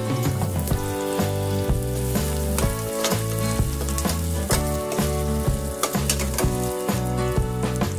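Sliced onions and garlic sizzling in hot oil in a stainless steel pot, stirred with a metal ladle that clicks and scrapes against the pot. Background music plays alongside.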